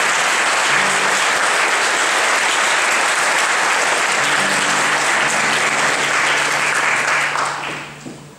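Audience applauding after a song, loud and even, dying away near the end. A few low acoustic guitar notes ring on underneath the clapping.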